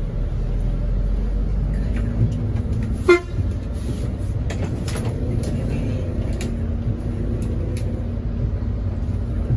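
Bus diesel engine idling with a steady low rumble; about three seconds in, one short vehicle horn toot. A few light knocks follow.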